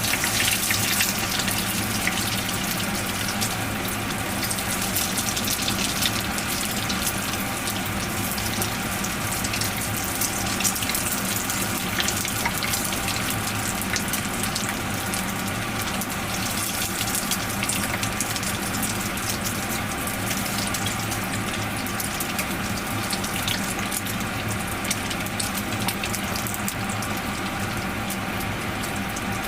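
Breaded menchi katsu cutlets frying in hot oil in a frying pan: a steady sizzle with a constant scatter of fine crackles.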